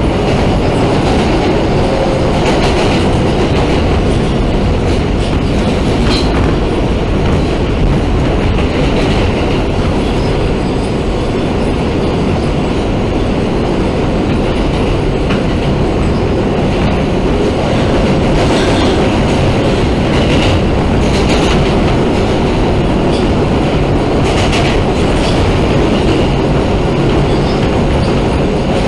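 New York City subway train running, heard from inside the car: a steady loud rumble with occasional sharp clacks from the wheels on the rails.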